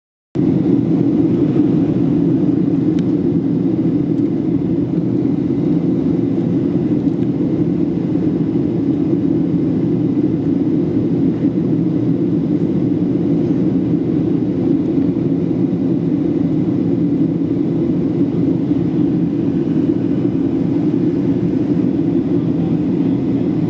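Steady cabin noise inside a Boeing 737-800 in flight: the low, even drone of its CFM56-7B turbofan engines and airflow over the fuselage, heard through the cabin.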